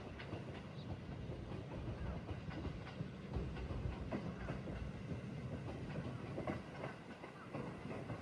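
A train running on the track: a steady low rumble with irregular clacks and clicks from the wheels over the rails.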